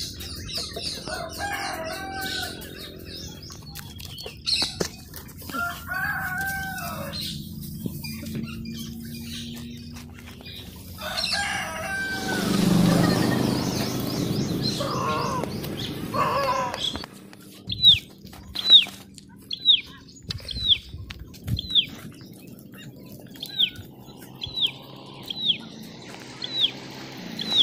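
Chickens and a rooster crowing and clucking, with small birds chirping. Around the middle a louder rush of noise swells and fades, and in the last third a bird repeats a short high call that sweeps downward, about once a second.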